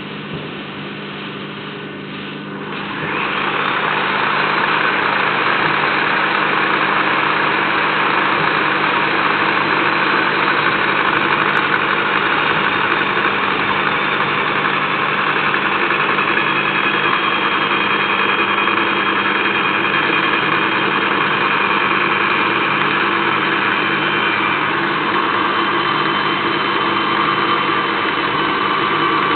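Portable line boring and bore-welding machine working on a 100 mm bore, a steady mechanical hum and hiss that gets louder about three seconds in and then holds steady.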